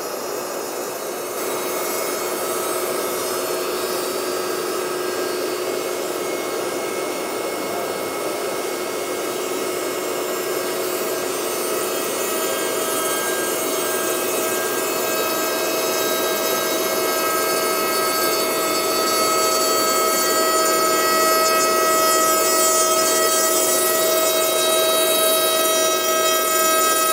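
CNC router spindle milling rough wood boards: a steady high whine over the noise of the bit cutting, growing a little louder through the second half.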